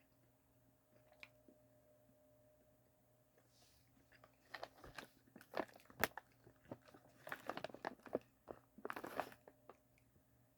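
Someone biting and chewing bite-size Pillsbury Reese's cookie dough snacks close to the microphone: faint at first, then bursts of crunching clicks in three clusters from about four seconds in to near the end.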